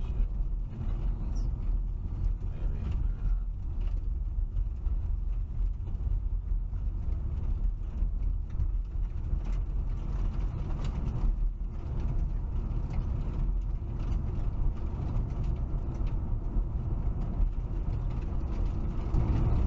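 Steady road and engine rumble inside a moving car, as picked up by a dashcam's microphone.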